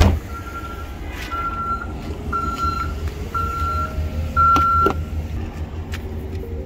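Toyota RAV4's electronic warning chime beeping steadily, about one beep a second, then stopping a little after halfway. Handling knocks sound over it, with a sharp knock right at the start and a louder clunk partway through.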